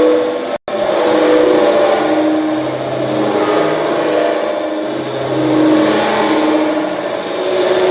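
Electronic synthesizer sound: a dense, buzzing, noisy texture with sustained tones that change pitch every second or so. It cuts out completely for an instant just under a second in.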